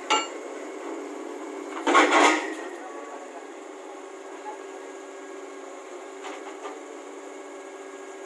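Steady machine hum, with a sharp ringing metallic clink just after the start and a louder rough burst of noise lasting about half a second, about two seconds in.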